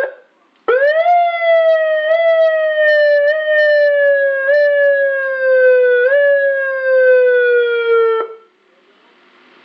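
TOA AS-928 200-watt electronic siren amplifier sounding a siren tone. After a brief chirp right at the start, one long tone rises quickly, slides slowly down in pitch with a small upward step about every second, and cuts off suddenly near the end.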